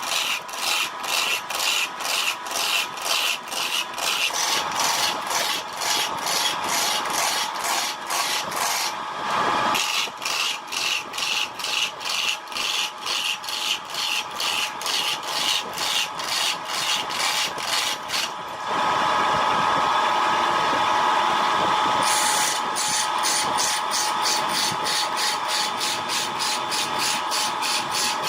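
Wood being scraped or cut on a spinning wood lathe, in rapid rhythmic strokes about three a second over the steady whine of the lathe. The strokes pause briefly about a third of the way in, and again for a few seconds past the middle, when only an even rushing scrape remains.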